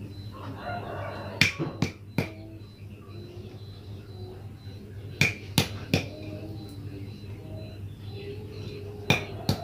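Boiled jengkol beans being smashed flat on a mortar dish: sharp knocks in three clusters of two or three blows, about every four seconds.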